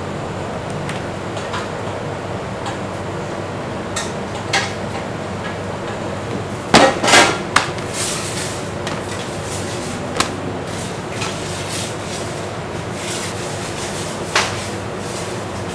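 Kitchen prep sounds over a steady background noise: scattered clacks and knocks of plastic tubs and utensils against a steel worktop while pizzas are topped, the loudest cluster about seven seconds in.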